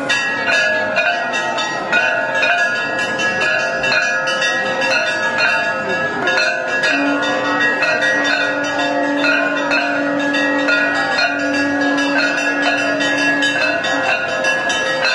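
Temple bells and a hand-held brass plate gong (jhalar) struck over and over, making a continuous dense metallic clanging. This is the ritual ringing for the opening of the sanctum for morning darshan. A long steady low tone is held through much of the second half.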